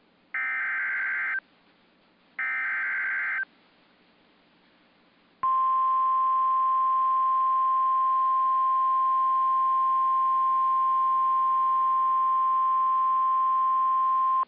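Two one-second bursts of SAME digital header data, the harsh buzzing data tones that open an Emergency Alert System message, then about two seconds of quiet. About five seconds in, the steady 1050 Hz NOAA Weather Radio warning alert tone begins and holds for about nine seconds, marking the start of a new warning broadcast.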